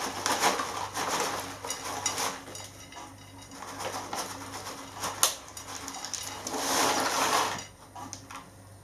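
Potato chips being poured out and spread on a plate: an irregular dry crackling and rattling with scattered clicks, one sharp click about five seconds in, and a louder stretch of it near the end.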